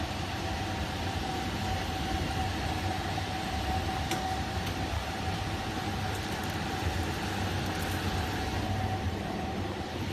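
Steam boiler running: a steady noise with a low rumble underneath and a single steady whining tone above it.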